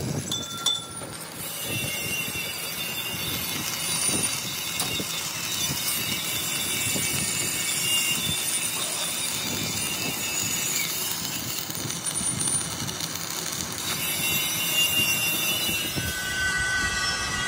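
Electric arc welding on a steel wheel rim: a steady crackling hiss from the welding arc, with a short dip about a second in.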